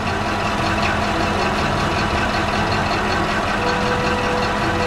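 Large crawler bulldozer's diesel engine running steadily under load.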